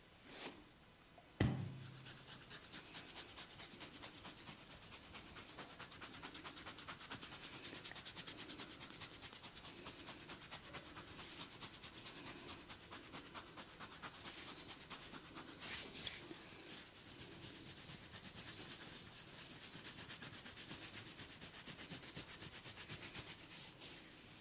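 Hands rubbing quickly and rhythmically over skin and hair in a head massage, about three strokes a second. A single sharp knock comes about a second and a half in.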